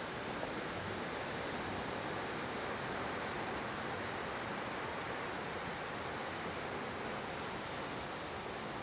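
Ocean surf breaking and washing up the shore as a steady, even rush.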